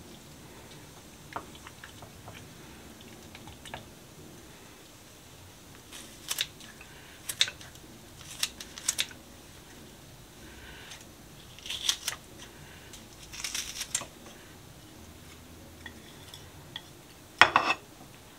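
Kitchen sounds of food being prepared: scattered short clicks, clinks and scrapes of utensils and dishes, the loudest one near the end.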